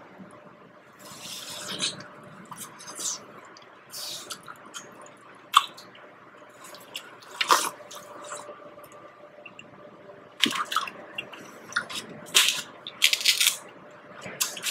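Wet chewing and lip smacking of someone eating king crab meat, with irregular short sharp clicks and squelches.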